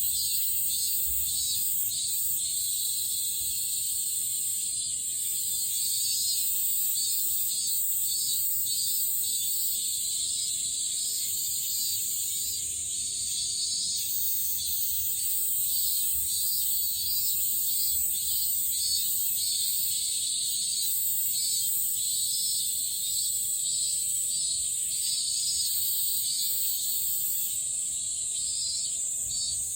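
A chorus of cicadas calling: a steady, very high-pitched drone with a lower, irregularly pulsing buzz layered beneath it.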